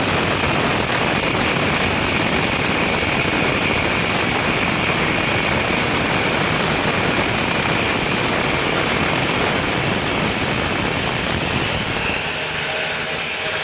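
Angle grinder with a cutoff disc running continuously, cutting through a rusted steel bed bolt. It makes a loud, steady hiss with a thin high whine over it.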